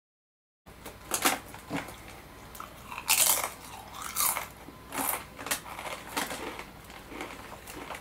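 Someone crunching on Doritos corn tortilla chips: a string of sharp bites and chews starting just under a second in, the loudest about three seconds in.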